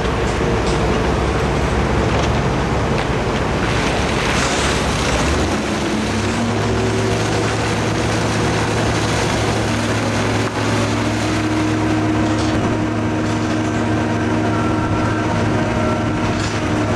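Heavy crane and site machinery running continuously while a muck skip tips broken rock onto a spoil pile. About five and a half seconds in, a steadier engine hum sets in and holds.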